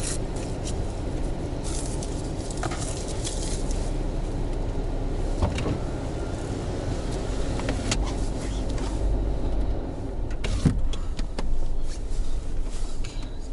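Car engine running, heard from inside the cabin as a steady low rumble, with a few light clicks and knocks.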